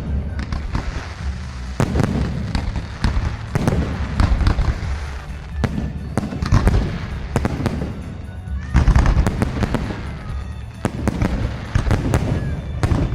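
Fireworks display: aerial shells bursting in a rapid, uneven run of sharp bangs.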